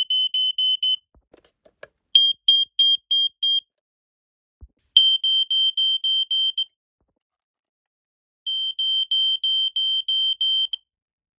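Smoke alarm sounding: four runs of rapid, high-pitched beeps at about five a second, each run lasting one and a half to two seconds, with pauses between.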